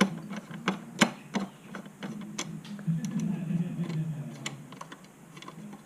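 Scattered sharp clicks and light taps of a Phillips screwdriver working a screw out of a motorcycle's seat area, a few strokes a second apart.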